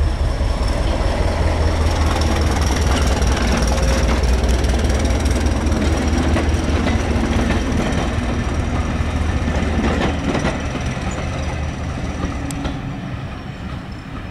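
A train rolling past close by: loud, steady rumble of coaches and wheels on the track, with a deep low drone underneath. It fades away over the last few seconds.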